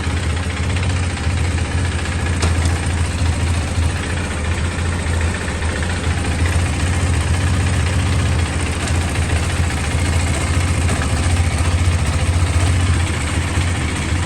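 KTM RC 390's single-cylinder engine idling steadily.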